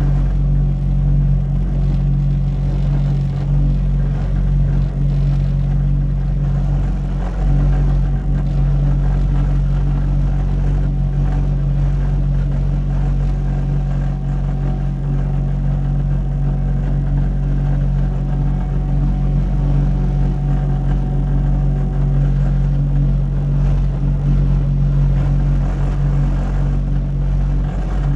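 Engine running steadily at constant speed, a continuous low hum with no breaks or changes in pitch.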